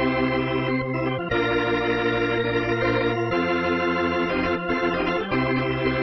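Organ playing a hymn in long held chords, moving to a new chord about every two seconds.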